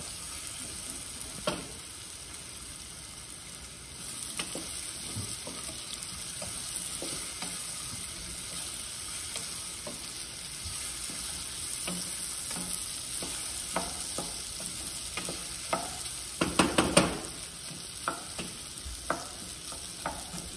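Peeled beans frying in olive oil in a pan, a steady sizzle, while a wooden spoon stirs them and knocks against the pan. A quick run of knocks comes toward the end.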